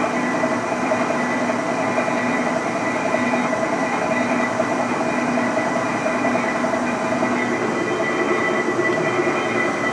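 1982 Tuda Jumbo 1250/4000 engine lathe running under power: a steady mechanical running noise from its drive and gearing, with several steady whining tones over it.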